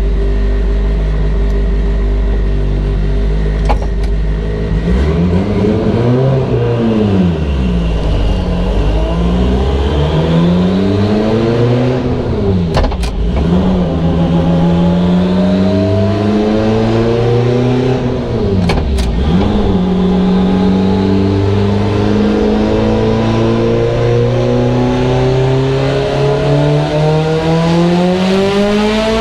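Turbocharged Mitsubishi Evo 8 four-cylinder running on a chassis dyno. It revs up and falls back a few times, with a few sharp cracks, then climbs steadily in pitch in a long pull near the end.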